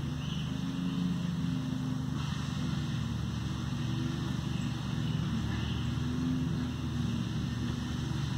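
A motor engine running steadily: a low, even drone with a fast regular pulse and no change in level.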